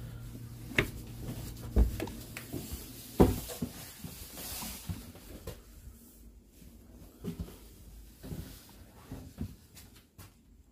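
Several sharp knocks and thumps, the loudest about three seconds in, then quieter scattered taps: someone moving about and handling things in the narrow corridor of an old passenger rail car.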